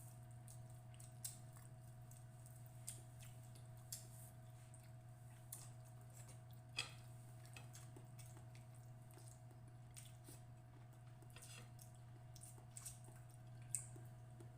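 Soft, wet chewing of fish and rice, with a few sharp isolated clicks, over a steady low hum.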